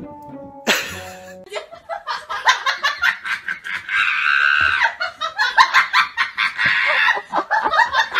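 A person laughing hard in rapid bursts, with a held high-pitched squeal of laughter about halfway through. A brief snatch of music plays at the very start.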